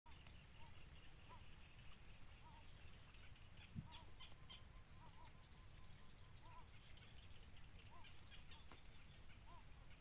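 Reedbed ambience: a steady high-pitched insect drone, with faint short chirps every second or so and a low rumble underneath.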